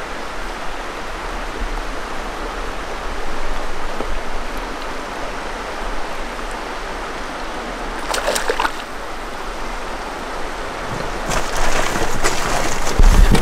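Steady rushing of river water flowing past an inflatable boat, with a few brief, sharper noises about eight seconds in and again near the end.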